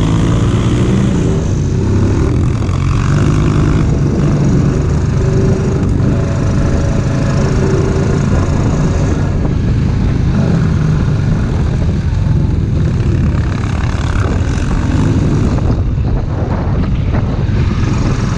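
ATV engine running steadily under way, its pitch wavering slightly near the start, with wind rushing over the microphone.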